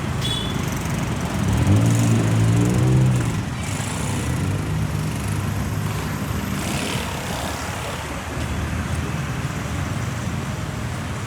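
Street traffic: a vehicle engine passes close by, loudest about two to three seconds in and fading over the next few seconds, over a steady background of street noise.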